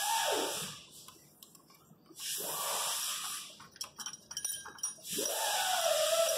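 Cordless electric ratchet running in short bursts on the alternator mounting bolts, its motor pitch rising and falling with the trigger. There are a few clicks about two-thirds of the way in, and it runs again near the end.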